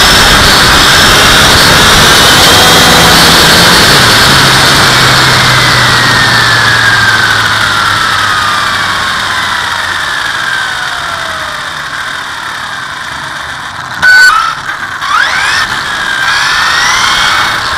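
Brushless electric motor and drivetrain of a Traxxas Slash 4x4 RC car, a Castle 1717 on 6S, whining over loud rushing tyre and wind noise picked up on board. The whine slowly falls in pitch as the car slows, a sudden loud clatter comes about two-thirds of the way through, and the whine then rises again as the car accelerates.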